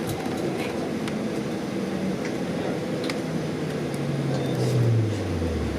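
Bus interior noise: the engine and ventilation run steadily under a constant rumble, and over the last two or three seconds a low engine or drive note slides down in pitch.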